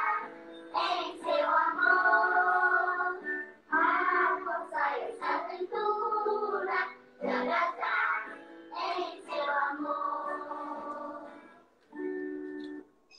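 A group of children singing a hymn together in sustained sung phrases; the singing stops with a held final note shortly before the end.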